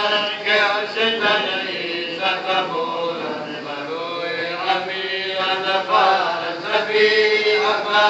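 Devotional chanting, voices holding long drawn-out melodic lines that rise and fall in pitch.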